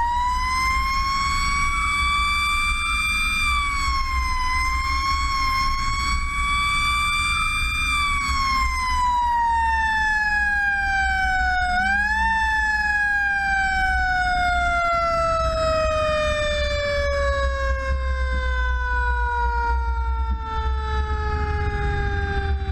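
Seagrave fire engine's siren wailing: it winds up to a high pitch, holds for about eight seconds, then winds slowly down, rises briefly again about twelve seconds in, and coasts lower to the end. A steady low rumble of the truck's engine and road noise runs beneath it.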